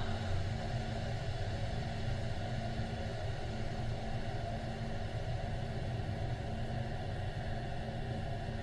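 Steady low mechanical drone with a constant hum, unchanging throughout; no blast or splash is heard.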